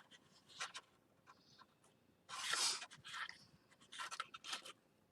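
Scissors cutting a notch out of a card file folder: a few faint short snips, with a louder half-second hiss about halfway through.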